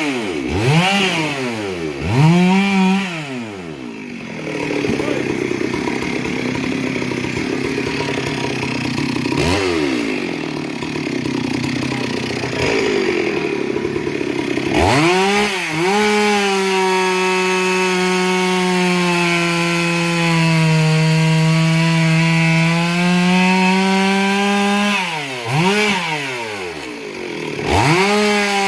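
Chainsaw engine revving up and down in quick blips, then cutting with a rougher, noisier sound for several seconds. It is then held at high speed with the pitch sagging a little under load, with a few more quick revs near the end.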